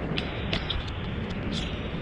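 Steady rushing outdoor noise, heaviest in the low end, with a few sharp clicks and knocks through it.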